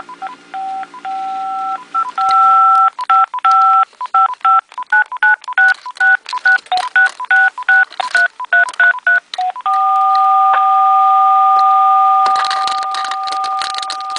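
Telephone keypad touch tones (DTMF): a held dual tone broken by short gaps, then a quick run of short key beeps about three a second, then one long held tone from about ten seconds in until near the end.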